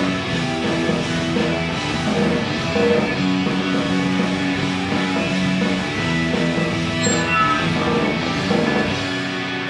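Punk band playing live, led by loud electric guitar chords that are held and change every couple of seconds.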